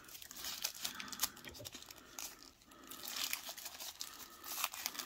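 Packaging crinkling and rustling as accessories are handled and taken from the box, with scattered light clicks and taps and a brief lull about halfway.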